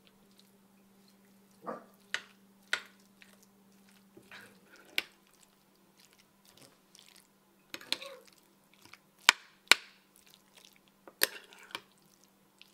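A utensil mixing a wet corn dip in a glass baking dish: soft squishing and scraping with sharp clinks and taps against the glass, the loudest two about half a second apart a little past the middle. A faint steady hum runs underneath.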